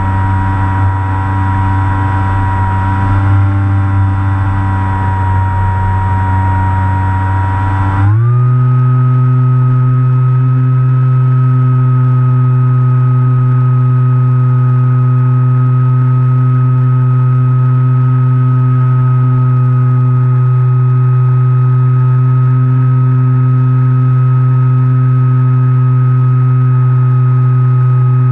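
RC plane's motor and propeller running steadily, heard from a camera mounted on the plane. About eight seconds in, the pitch glides quickly up to a higher steady note as the throttle is raised.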